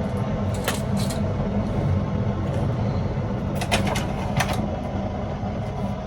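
A kitchen appliance heating water runs with a steady low hum. A few light clicks and taps come about a second in and again around four seconds in.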